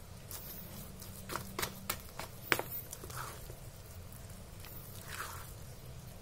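A plastic spoon stirring thick, wet lobster-and-rice nugget dough in a bowl: soft squelching with several sharp clicks of the spoon against the bowl, the loudest about two and a half seconds in.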